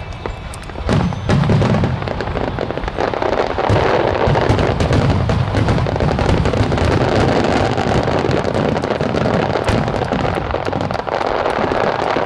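Wide star mine fireworks barrage: a dense, continuous stream of shells bursting and crackling over a low rumble, growing louder about a second in.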